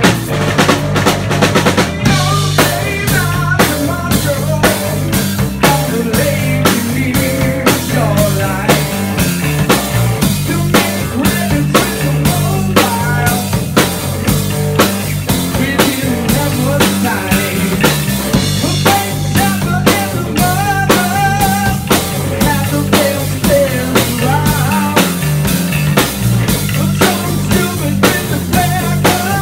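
Rock drum kit played in a steady groove of bass drum, snare and Zildjian cymbals, over a rock band track with bass and melody.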